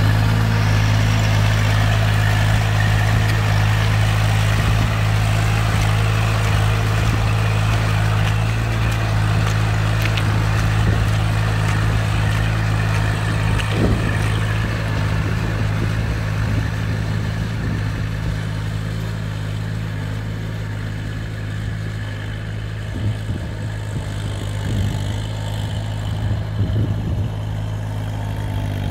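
Kubota tractor's diesel engine running steadily under load as it harrows a flooded rice paddy on steel cage wheels, growing fainter as it moves away. A few short knocks and clatters come in the second half.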